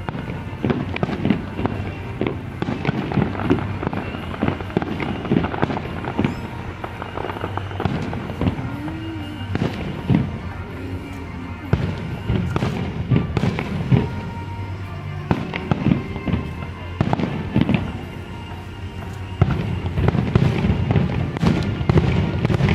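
Aerial fireworks bursting in quick succession, sharp bangs and crackles one after another, growing denser and louder in the last few seconds.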